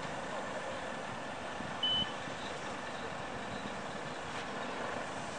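A steady, even outdoor noise with a single short, high-pitched electronic beep about two seconds in.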